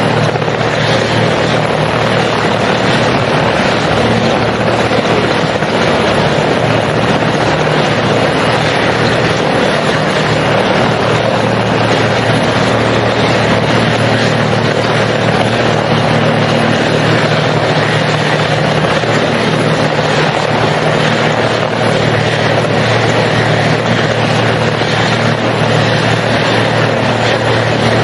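Helicopter engine and rotor noise, loud and steady throughout.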